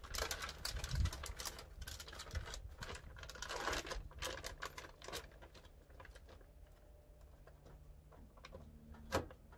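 Plastic vacuum-sealer bag crinkling and crackling as hands smooth it flat and lay its open edge into the vacuum sealer, in quick irregular crackles that thin out after about five seconds. A sharp click near the end as the sealer's lid is pressed shut.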